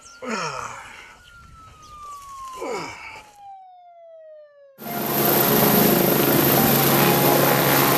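An emergency siren wail that slowly falls in pitch, with two short cries from a woman under it. About five seconds in it cuts off abruptly and loud, steady helicopter noise takes over.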